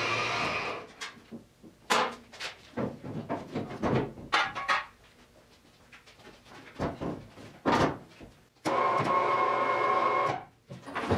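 Workshop noise: a steady machine-like sound cuts off under a second in, followed by scattered knocks and clatter, then starts again for nearly two seconds near the end.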